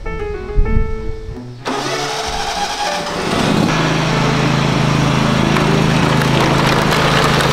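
A John Deere riding lawn mower's engine starts about two seconds in and then runs steadily, under background music that opens with piano notes.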